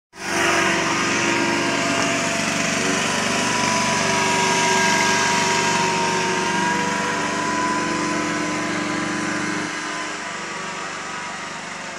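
Small engine of a walk-behind outdoor litter vacuum running steadily at high speed, with a whining tone. The deepest part of the sound drops away about ten seconds in.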